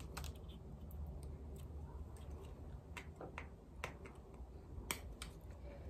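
Faint, scattered clicks and ticks of small scissors picking and snipping at the plastic seal over a reed diffuser bottle's cap, with the bottle handled in the hands.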